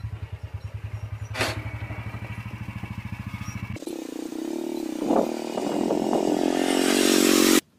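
Sears Compact 7 lawn tractor's small engine running with a fast, even putter as it is driven. About halfway through, the note changes to a higher engine sound that climbs steadily with a growing hiss, then cuts off suddenly near the end.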